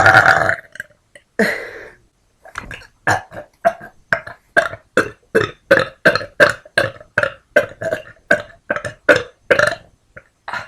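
A person burping: a long loud burp fading out at the start, another about a second and a half in, then a long rapid string of short, evenly spaced burps, about three a second.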